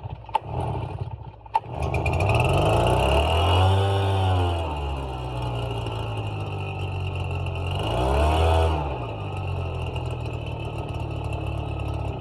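Redmax EBZ backpack blower's two-stroke engine catching on a pull of the starter cord about a second and a half in, then running, revved up twice and dropping back to idle each time. It now runs because a dirty fuel filter that was restricting fuel has been replaced.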